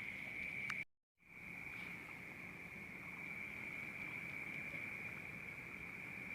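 Steady high-pitched insect trill, cricket-like, broken by a brief drop to dead silence about a second in, with a few faint clicks.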